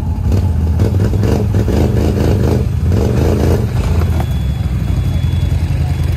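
ATV engine running and revving under load as the quad pulls up a rough slope, surging unevenly during the first few seconds.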